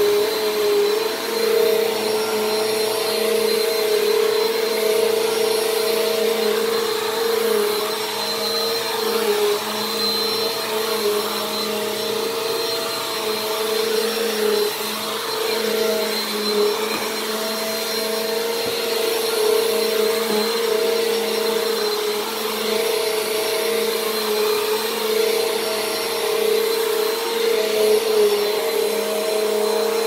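Bissell PowerForce Compact (model 1520) bagless upright vacuum cleaner running steadily while it is pushed across carpet. Its motor gives a constant whine, with a slight wavering in pitch, over a rush of airflow.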